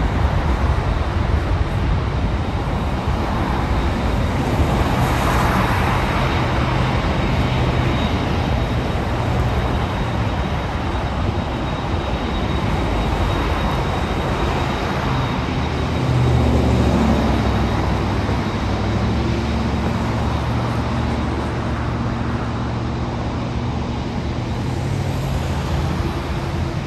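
Road traffic passing close by, with cars swelling past, one clearly about five seconds in, over the low, steady rumble of a Boeing 767-300ER's jet engines at takeoff thrust as it rolls down the runway and climbs out.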